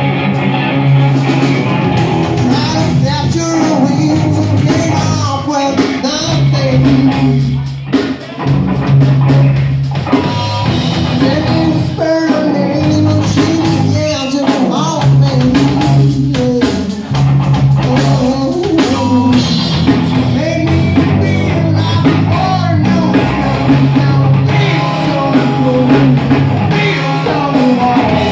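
Loud live rock band playing: drum kit, bass guitar and electric guitar, with the bass holding long low notes.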